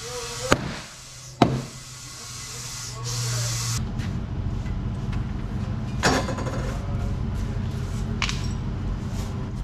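Compressed air hissing from an air chuck on a trailer tire's valve stem, with two sharp clicks, cutting off about four seconds in. A broom then scratches across the concrete shop floor.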